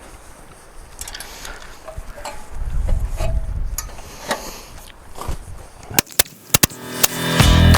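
Scattered light knocks and clicks with a brief low rumble, then music comes in loudly near the end.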